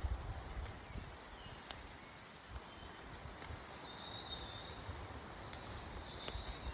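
Steady patter of rain in woodland with scattered drip ticks and a few low thumps in the first second. About four seconds in, a songbird sings a high, warbling phrase lasting a couple of seconds.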